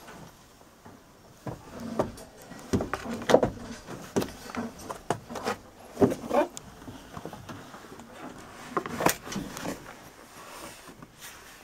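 Irregular knocks, clunks and rustling, heaviest from about two to six seconds in and again around nine seconds; no engine is running.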